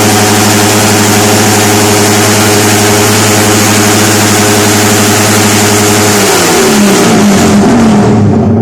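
Engine held at high revs through a loud aftermarket exhaust pipe, a steady, loud note. About six seconds in the revs are let off and the pitch drops to a lower, rougher running.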